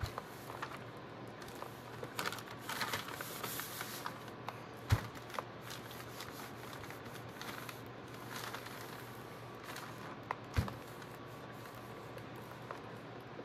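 Clothes iron sliding back and forth over wax-sprinkled packing paper, the paper crinkling and rustling as the wax flakes melt into it. Two dull knocks, one about five seconds in and one after ten seconds.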